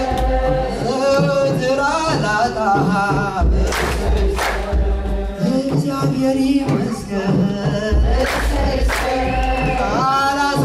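A group of men and women singing a hymn together. Two pairs of sharp, deep strikes fall about four and a half seconds apart.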